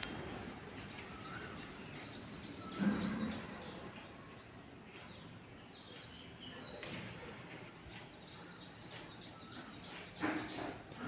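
Faint bird chirps over quiet outdoor background noise, with one brief muffled bump about three seconds in.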